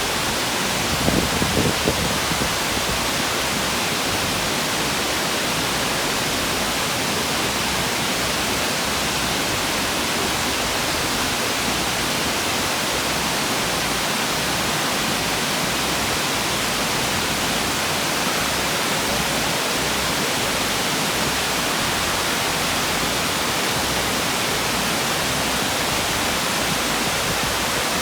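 Steady rush of falling water from a waterfall, an even roar with no change in level, with a few brief thumps about a second in.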